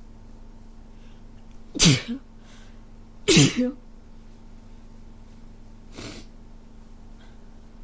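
A person with a cold sneezing: two loud sneezes about a second and a half apart, then a softer third one a few seconds later.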